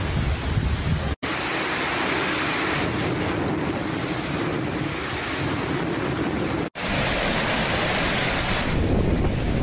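Storm wind and heavy rain, a loud steady rushing with wind buffeting the phone's microphone. The sound breaks off for an instant twice, about a second in and near seven seconds, as the footage cuts between phone recordings.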